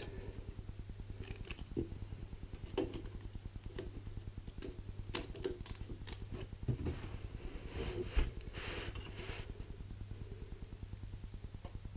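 Faint handling noises, light scattered clicks and taps and a brief rustle, as a desktop RAM stick is handled at an open PC case, over a steady low hum.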